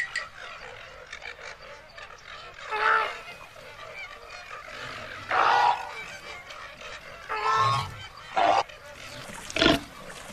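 Flamingo flock honking: about five separate goose-like calls a second or two apart, the last one, near the end, the loudest. Under them runs a faint steady hiss.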